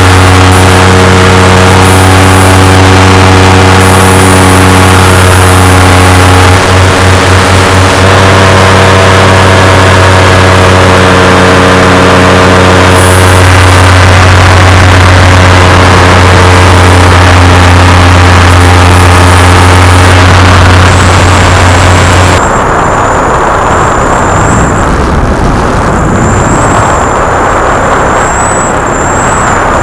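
Paramotor engine and propeller running loud and steady close to the microphone, its engine note holding one pitch with a brief flutter about seven seconds in. About 22 seconds in the steady engine note drops away and a rougher rush of noise remains.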